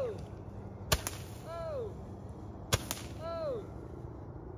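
Handheld roman candle-style firework firing shots. There are sharp pops about a second in and again near 2.75 s, and short whistles falling in pitch near the start, around 1.6 s and around 3.4 s, before the firing stops.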